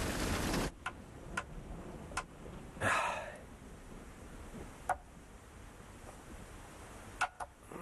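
A loud, even rushing noise cuts off abruptly under a second in. Then a ballpoint pen makes a few scattered light clicks and taps at a table, with a brief wavering sound about three seconds in.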